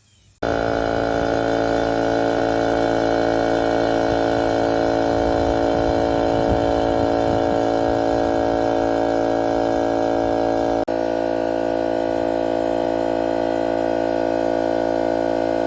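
DeWalt cordless air compressor motor and pump running steadily, starting about half a second in, with a brief drop near two-thirds of the way through before it runs on.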